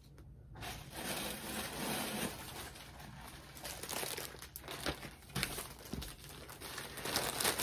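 Plastic packaging crinkling and rustling as a folded garment is slipped into a clear poly bag and handled beside a white poly mailer, with a few short sharp crackles past the middle.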